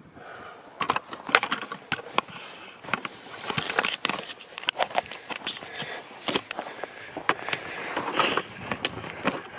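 Irregular clicks, crackles and rustling of a handheld camera being handled and swung round, the microphone rubbing against hands and clothing.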